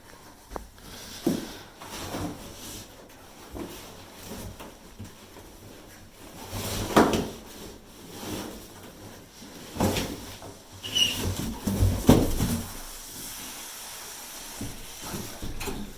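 Irregular knocks, scrapes and rustling of a large scooter shipping box and its packing being handled and shifted, with several louder thumps in the second half.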